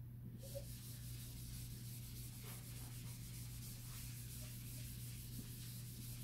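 Chalkboard eraser rubbing back and forth across a blackboard in quick strokes, a dry, scratchy hiss that starts about half a second in.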